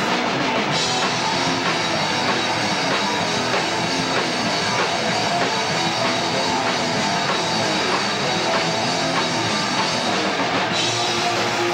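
Live rock band playing loud and steady: electric guitar over a drum kit.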